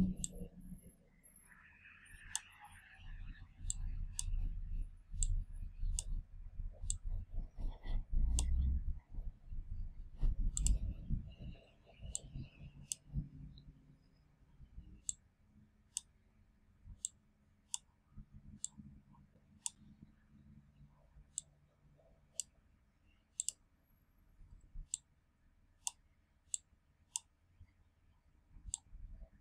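Computer mouse button clicking irregularly, about once a second, as anchor points are placed with Illustrator's pen tool. Dull low thumps and rubbing run under the first dozen or so seconds.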